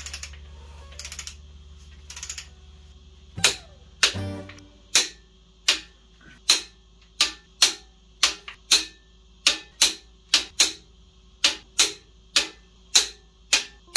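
Torque wrench ratcheting on the main bearing cap bolts of an AMC 360 V8 as they are tightened to 100 foot-pounds. Short rapid ratchet runs come in the first few seconds, then a steady series of sharp single metallic clicks, about one to two a second.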